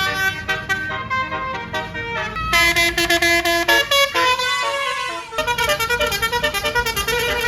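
Basuri telolet horn on a tour bus, its roof trumpets playing a melody in stepped notes that change every fraction of a second, turning into a fast run of short staccato notes about five seconds in.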